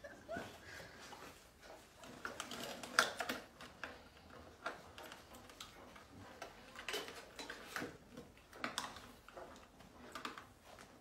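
Scattered, irregular light clicks and taps of a puppy's claws and paws on a hard plastic step platform.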